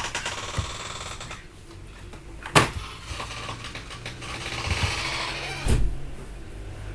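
Handling noise: three sharp clicks about three seconds apart, with light rattling and clattering between them.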